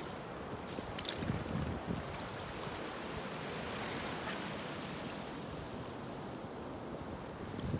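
Steady wind and water noise, with a couple of faint clicks about a second in.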